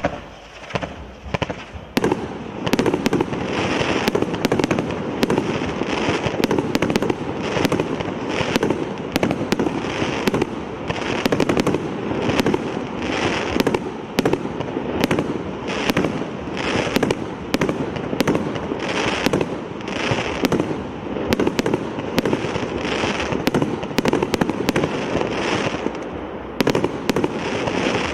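100-shot firework cake firing volley after volley: rapid sharp shots and bursts overlapping in a steady barrage, reaching full rate about two seconds in.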